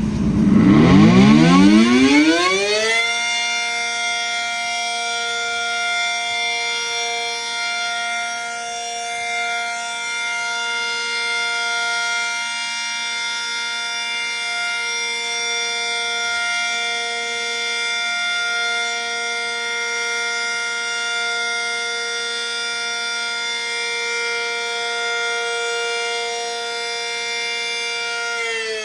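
ACA Super Banshee electromechanical warning siren winding up, its pitch rising for about three seconds, then holding a steady, loud wail at full speed. It starts to wind down right at the end.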